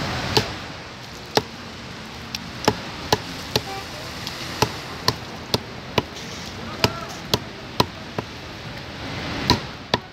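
Large knife chopping fried fish on a thick wooden chopping block: a string of sharp knocks, roughly two a second, unevenly spaced.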